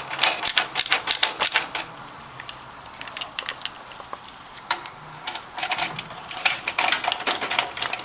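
Hand tool driving small screws through a motherboard into the case's brass standoffs: quick runs of light metallic clicks, a pause with only a few clicks in the middle, then another run near the end.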